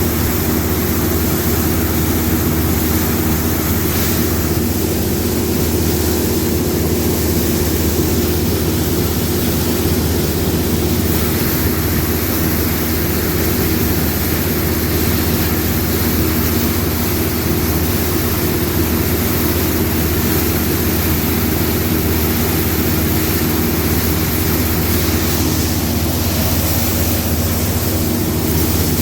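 Combine harvester running steadily at working speed: a constant engine drone with a steady hum and no change in pitch.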